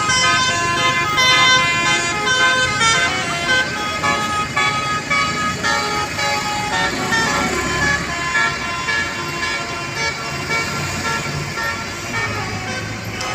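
Basuri 'telolet' musical air horn on a tour bus playing a quick tune of short horn notes that change pitch every fraction of a second, over the bus engine's low rumble.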